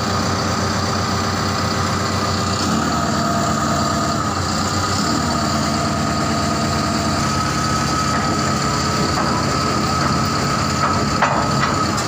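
Heavy diesel engine of earth-moving machinery running steadily at idle. A thin, high whine joins about halfway in, and there is one sharp metallic knock near the end.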